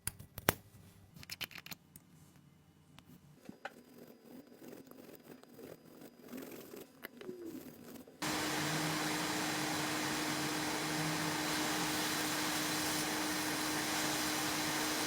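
Scattered light clicks and taps, then about eight seconds in a hot-air rework station switches on and blows with a steady, loud hiss and a low hum, as used to heat a phone's CPU chip for reballing.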